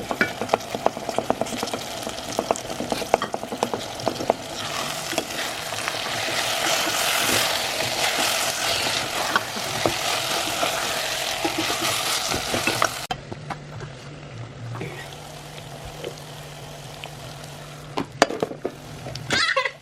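Minced meat sizzling in a pot while a spoon clicks and scrapes against it in the stirring. The sizzle grows louder midway, then stops abruptly, leaving a low steady hum and a couple of knocks near the end.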